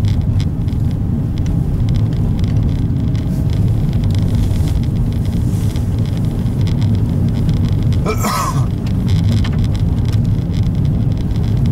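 Steady low rumble of a car's engine and tyres on a snow-covered road, heard from inside the cabin. A short pitched sound cuts in briefly about eight seconds in.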